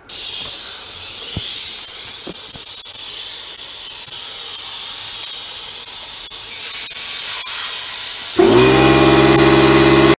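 Compressed air hissing loudly from an air line into a freshly fitted motorcycle tyre, inflating it to seat the bead on the rim. About eight seconds in, the air compressor's motor starts up with a steady hum.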